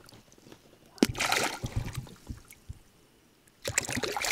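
A hooked small catfish thrashing at the water's surface beside the boat. It splashes in two bouts: a sharp splash about a second in, then a louder, longer run of splashing near the end.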